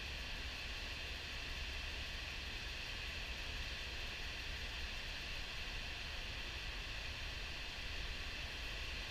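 Steady rushing roar of high-flow river water spilling over a diversion dam's spillway and churning into whitewater below.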